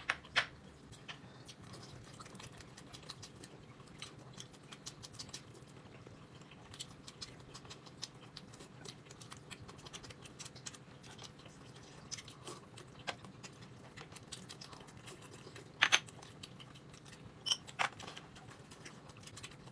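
Quiet eating: soft chewing with many faint scattered clicks, and two sharper clicks in the last few seconds.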